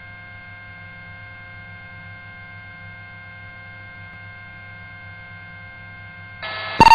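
Steady low electrical hum, with several faint thin steady tones above it, on the police radio and intercom audio between transmissions. Near the end the channel opens with a sudden rise in noise and a sharp click as the next transmission keys up.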